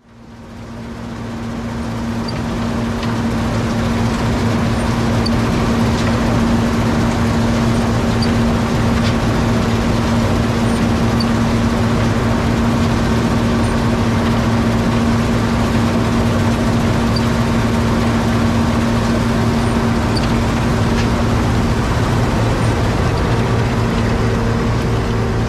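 John Deere 7720 Turbo combine running steadily while harvesting wheat, a loud continuous engine-and-machinery drone with a steady hum, fading in over the first couple of seconds.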